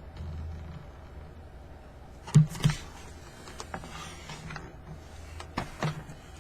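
Scattered knocks and clicks of boxed toys and cardboard packaging being handled, the loudest pair about two and a half seconds in, over a steady low hum.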